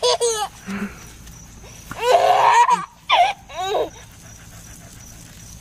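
A toddler's short bursts of laughter mixed with a collie-type dog's excited sounds as it snaps at the spray from a garden hose, in three bursts: at the start, about two seconds in and around three seconds in.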